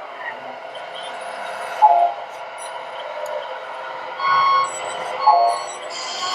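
Indoor hall ambience from an RC model course: background voices, with a steady electronic beep about four seconds in, like a scale model's reversing warning, and a short hiss near the end.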